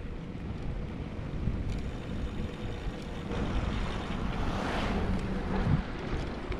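Wind rushing over the microphone of a moving bike, with road rumble underneath; it grows louder for a couple of seconds near the end.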